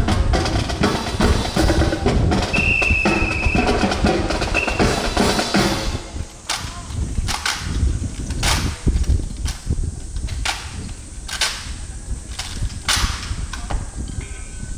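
Marching snare and bass drums playing a dense cadence with rolls, which stops about six seconds in. After that, single sharp strikes come roughly once a second. A brief high steady tone sounds about two and a half seconds in.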